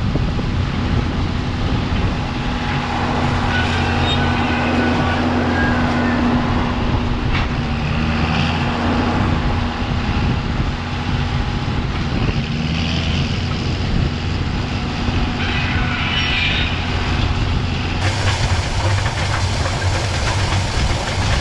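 Tractor engine running steadily under load, pulling a hay rake through windrowed alfalfa. A brighter hiss comes in near the end.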